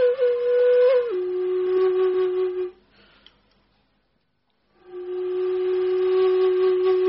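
Music of long, steady held notes: one note steps down to a lower one about a second in, breaks off for about two seconds, then the lower note is held again.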